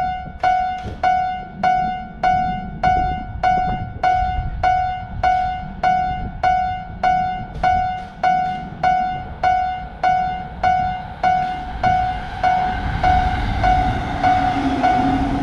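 Japanese railroad crossing warning bell ringing at the same pitch in an even rhythm, a little under two dings a second. Near the end the rumble of an approaching train rises underneath.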